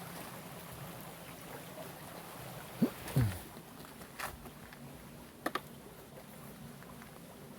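Metal detector giving a short signal, a pitched tone that rises and then falls, about three seconds in, over the steady rush of a waterfall. Two sharp clicks follow, about a second apart.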